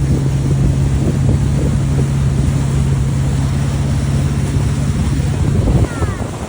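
Speedboat engine running at a steady pitch under wind noise on the microphone. Near the end the engine note stops abruptly and the sound drops to wind and water.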